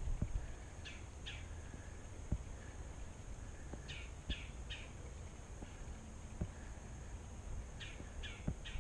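A songbird calling: short falling notes in groups of two or three, a few seconds apart, over a low outdoor rumble. A few dull knocks are the loudest sounds, the strongest right at the start and one about two seconds in.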